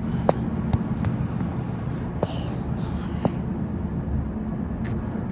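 Steady drone of a car on the move, road and engine noise heard from inside the cabin, with a few light clicks and knocks.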